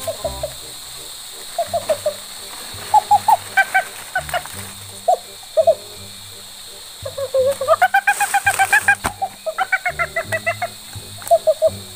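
Background music: a low, stepping bass pattern under a quick melody of short, sharp high notes that comes in runs, busiest in the second half.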